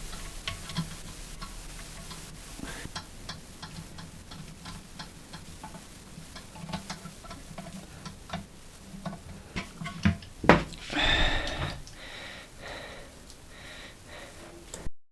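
Scattered light clicks and taps of a wrench and bolt hardware being worked on a toilet cistern, with a loud knock about ten seconds in followed by a second or so of scraping.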